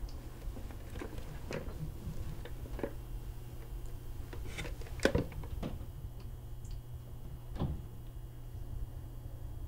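Small knocks and clicks of a cream rotary desk telephone being handled and lifted, the sharpest click about five seconds in, over a steady low hum.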